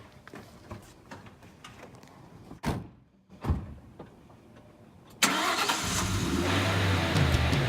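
Car doors slamming twice, then a car engine starting about five seconds in and running loudly.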